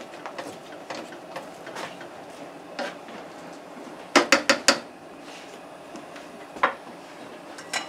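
A spatula stirring and scraping ground beef, kielbasa and onions in a stainless steel skillet, with light clicks against the pan, then four quick sharp knocks of utensil on metal about four seconds in and two single knocks later.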